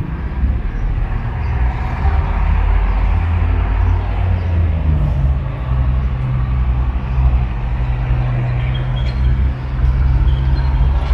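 Street traffic: a motor vehicle's engine running close by, a loud low rumble with a steady hum that settles in about halfway through.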